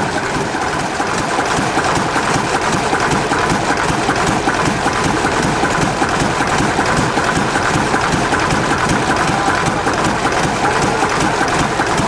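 Ruston horizontal stationary engine running steadily with a rapid, even mechanical clatter.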